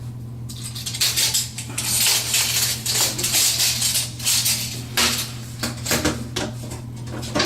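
Hand tools being handled: light metallic clinks and rattles in several short spells, over a steady low hum.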